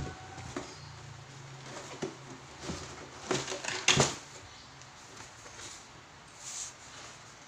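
Cardboard model-kit box and plastic-bagged parts being handled: a run of knocks and crinkling rustles, loudest about four seconds in as the parts are lifted out, then quieter rustling.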